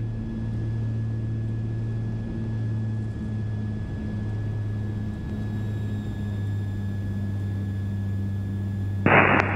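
Cessna 340's twin turbocharged six-cylinder Continental engines droning steadily, heard from inside the cabin on landing approach with full flaps. About nine seconds in, a loud burst of radio hiss cuts in over the drone.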